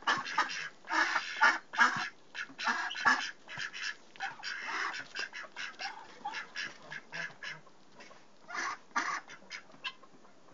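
Indian Runner ducks quacking: a busy run of short, rapid calls that thins out through the second half, with a brief lull and then a few last calls near the end.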